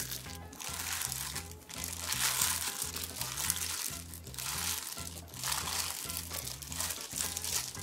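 Disposable plastic glove crinkling and vegetables rustling in several short bursts as a gloved hand lifts handfuls of bibimbap toppings onto rice in a metal pot. Background music with a steady bass line plays underneath.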